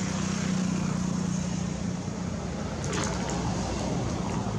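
Steady low engine hum over outdoor background noise, weakening after about two seconds, with a few faint clicks about three seconds in.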